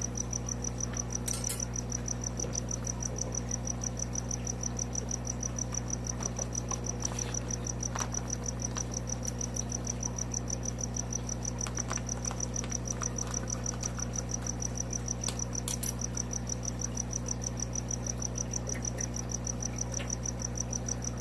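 A cricket chirping steadily in a fast, even pulse over a steady low hum. Two brief sharp noises stand out, about a second and a half in and again about sixteen seconds in.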